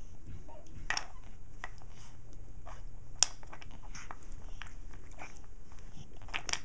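Small clicks and taps of wooden number pieces being handled and fitted into the slots of a wooden toy clock puzzle, with one sharper click about three seconds in.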